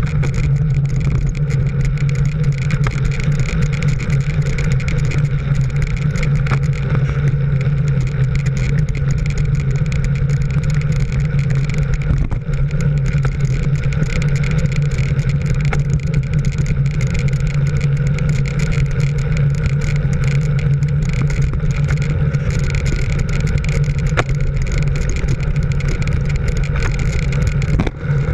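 Steady moving-vehicle noise: a constant low drone with wind and road rush on the microphone, holding an even pace.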